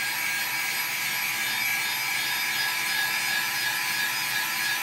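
Handheld dryer running steadily, blowing air with an even hiss and a thin motor whine, drying wet alcohol ink on the paper.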